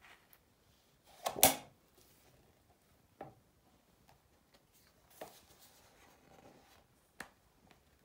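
Pages of a large photobook being turned by hand: a loud paper flap and rustle about a second and a half in, then several softer rustles and light taps as the pages settle and are smoothed.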